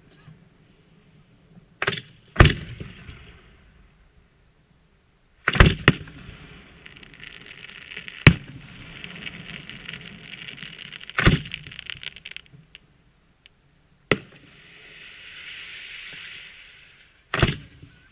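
Aerial firework shells bursting overhead: about eight sharp bangs a few seconds apart, some in quick pairs, with a hiss between several of them.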